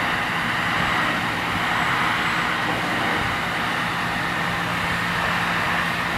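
Steady hiss of water and foam flowing through a self-serve car wash foam brush as it scrubs the car, over a steady low hum from the bay's pump equipment.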